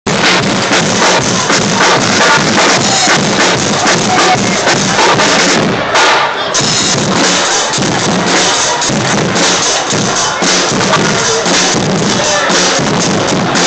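Guggenmusik band playing loud: massed brass over a drum kit and bass drum beat, with crowd noise mixed in.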